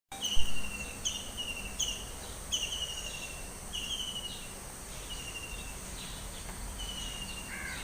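A bird repeats a short, slightly falling whistled call about once a second over a steady high-pitched insect drone. There is a sharp thump just after the start and a low rumble of wind or handling on the phone's microphone.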